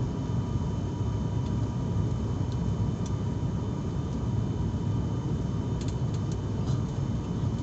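Steady rumble of a passenger airliner's engines and airflow heard inside the cabin, with a faint steady whine and a few light ticks near the end.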